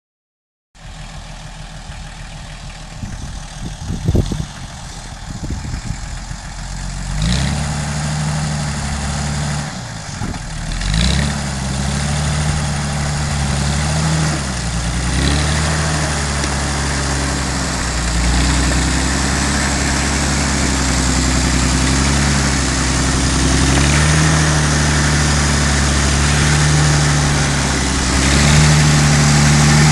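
The six-cylinder Volvo engine of a home-built tractor runs as it pulls a loaded firewood trailer, its engine note stepping up and down several times and growing louder as the tractor comes closer. A sharp knock sounds about four seconds in.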